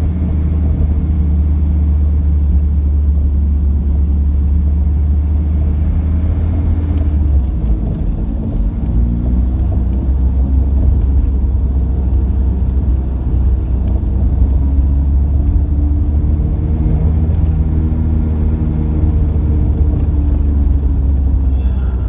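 Engine and road drone of a moving vehicle, heard from on board: a steady low rumble with engine tones that drift up and down in pitch. The low drone changes about seven seconds in.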